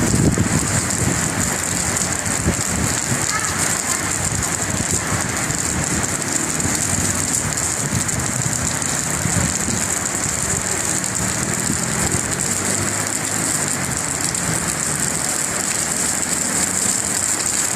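Heavy rain pouring steadily onto surfaces, a dense even hiss that does not let up.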